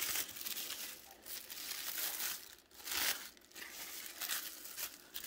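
Tissue paper and thin plastic wrapping crinkling and rustling as hands unwrap a silicone doll part, in several spells with short pauses between.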